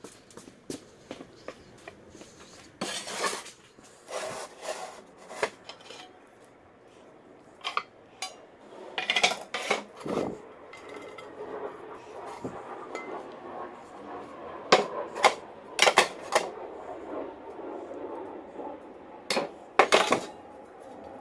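Old metal frying pans being unstacked and set down on a wooden table: irregular clanks and knocks as the pans strike each other and the boards, with scraping between them and a short metallic ring after some strikes.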